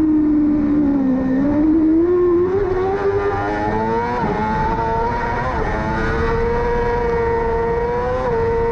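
Yamaha R6 supersport motorcycle's inline-four engine running at high revs. Its pitch sags about a second in, then climbs, with a few quick small dips near the middle and near the end.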